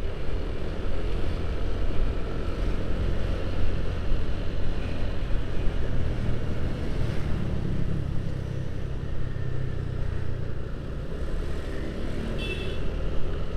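Motorcycle riding through city traffic: a steady low engine and road rumble.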